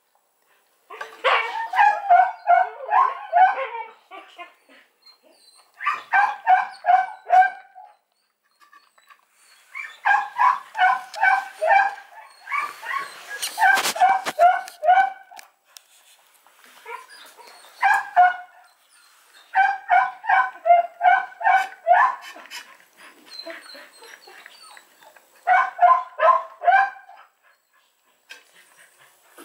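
A dog yipping and whimpering in repeated high-pitched bursts. Each burst lasts a second or two and holds several quick yips, with short pauses between bursts.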